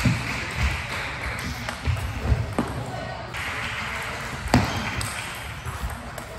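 Table tennis ball clicking sharply off rubber paddles and the tabletop during a rally: a string of separate, irregularly spaced ticks and taps.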